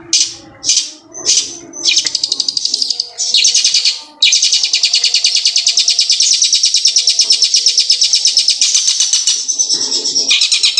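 Caged long-tailed shrike (cendet) singing a mimicked ciblek gunung (prinia) song. It gives a few separate sharp notes, then a long, very fast, high trill lasting about five seconds. The trill breaks off briefly and starts again near the end.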